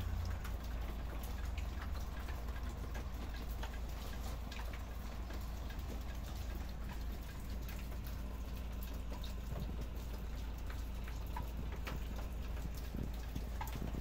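Steady rain, with many scattered drops ticking irregularly on nearby surfaces over a steady low rumble.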